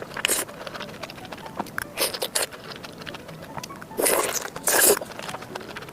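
Close-miked eating sounds: a run of small wet mouth clicks from chewing, broken by several short, loud hissing bursts, the loudest a pair about four to five seconds in.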